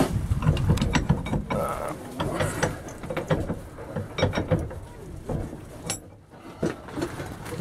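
Irregular metallic clicks, clinks and rattles of steel being handled and worked in an old cast-iron vise, with a brief lull near the end.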